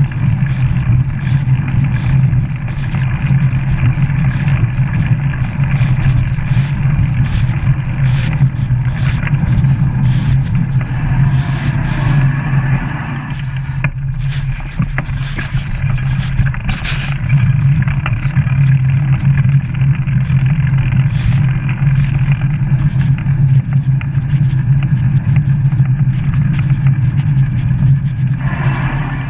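Steady low rumble of wind and tyre noise on a camera riding a bicycle along a tarmac path, with frequent small clicks and rattles from the bike over bumps. The rumble eases briefly about halfway through.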